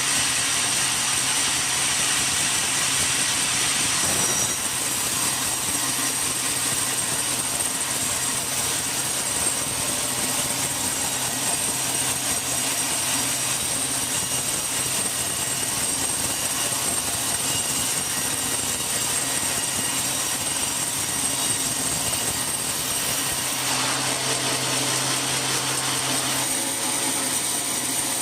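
Sawmill machinery running steadily while teak is sawn, a dense mechanical noise with a steady high whine. The noise shifts slightly about four seconds in and again near the end.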